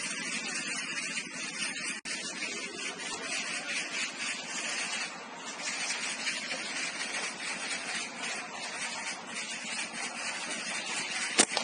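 Steady hissing noise, with a single sharp click near the end.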